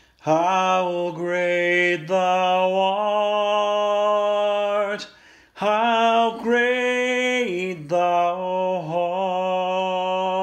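A man's voice singing the slow closing phrases of a hymn unaccompanied, long held notes in two phrases with a short breath between them.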